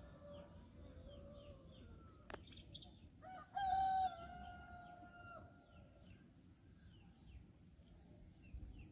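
A rooster crowing once, a long held call beginning about three seconds in, the loudest sound here, over faint scattered chirps of small birds.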